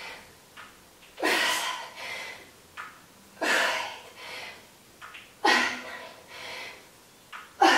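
A woman breathing hard with exertion during goblet squats: four heavy, noisy breaths about two seconds apart, one with each rep.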